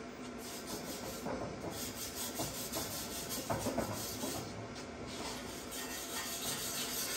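Irregular scraping and rubbing of metal on a steel diff housing being worked by hand, with a few small knocks.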